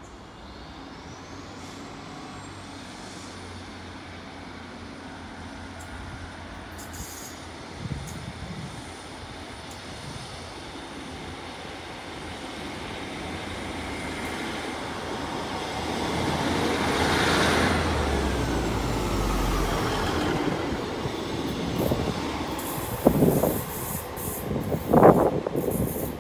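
Class 150 Sprinter diesel multiple unit pulling out and passing close by. Its underfloor diesel engines grow steadily louder to a peak as it goes past, then fade with a falling pitch as it draws away. A few loud thumps come near the end.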